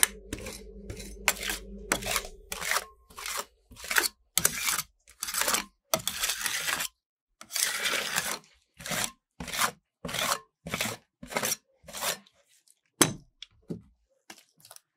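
Steel spatulas scraping across a thin frozen layer of ice cream on a stainless-steel cold plate, about twenty separate strokes. A sharper clack comes near the end, when the spatulas are set down.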